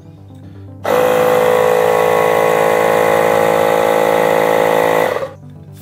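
Milwaukee cordless inflator's compressor switching on about a second in, running at a steady pitch for about four seconds, then shutting off. It is pumping air into the air side of an Accusump oil accumulator, pre-charging it to about 16 psi.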